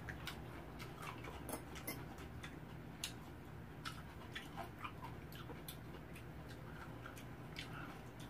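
Quiet eating sounds: scattered small, irregular clicks and clinks of spoons on bowls and chewing, over a low steady hum.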